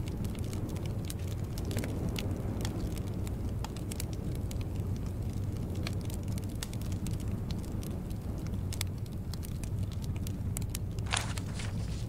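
Wood fire crackling in a fireplace: irregular sharp pops and snaps over a steady low rumble, with a louder, longer crackle near the end.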